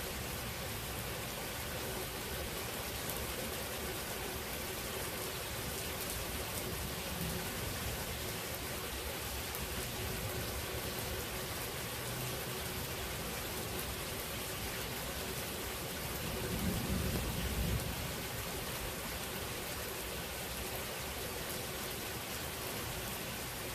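Steady rain during a thunderstorm, an even hiss, with one short low rumble about two-thirds of the way through.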